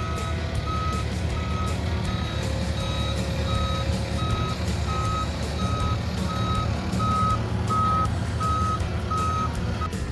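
A vehicle's reversing alarm beeping steadily, about one and a half beeps a second, over a running engine. The beeping stops near the end.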